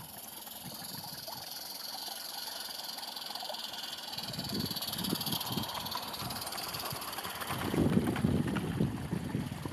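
Model garden-railway train, a small locomotive hauling wagons, rumbling and clicking along the track as it approaches, loudest near the end as the wagons pass close by. A steady hiss runs underneath.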